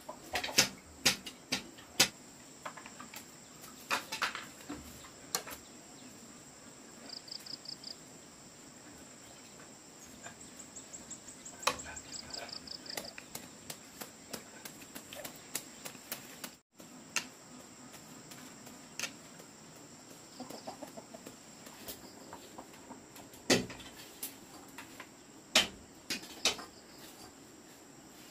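A steady high insect drone with short runs of quick chirps, broken by scattered sharp clicks and knocks.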